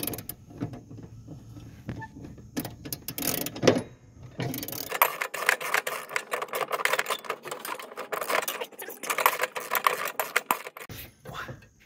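Ratchet socket wrench clicking as it loosens the bolts of the mower deck's guide (idler) pulleys. A few scattered clicks and knocks come first, then about five seconds in a fast run of ratcheting that lasts about six seconds.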